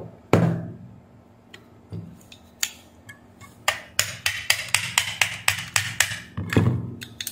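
Hand tools handled on a workbench: a heavy knock as a tool is put down, a few scattered clicks, then a quick even run of light clicks, about four a second for a couple of seconds, and another heavy knock near the end.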